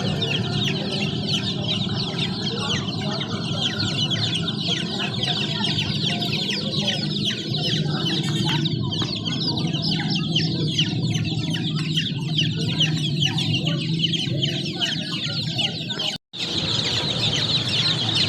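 A crowd of chicks peeping continuously: many short, high chirps overlapping, over a steady low hum. The sound cuts out completely for a moment about sixteen seconds in, then resumes.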